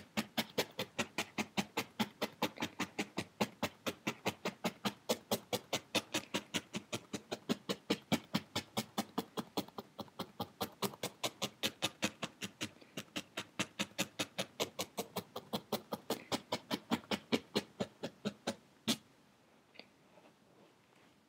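Felting needle stabbing repeatedly through purple wool into a foam felting pad, compacting the wool into felt, as steady rapid pokes about four a second that stop shortly before the end.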